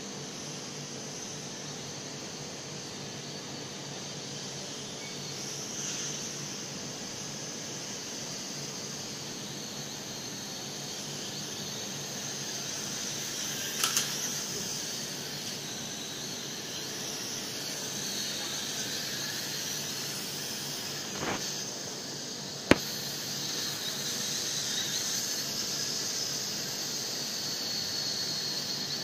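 NiGHT LiONS TECH N227 toy quadcopter's four small propeller motors whirring with a high, steady whine that drifts a little in pitch as it flies. A few sharp clicks or knocks break in partway through, the loudest a single crack a little over three-quarters of the way in.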